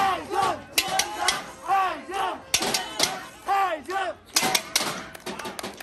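Football supporters chanting and shouting in rhythm, with sharp hits punctuating the shouts. Late on, the hits come thicker and the voices thin out.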